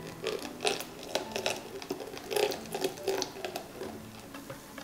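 Silicone-coated wire whisk stirring liquid egg-yolk mixture in a glass bowl, tapping the glass and sloshing in quick, irregular strokes while milk is poured in.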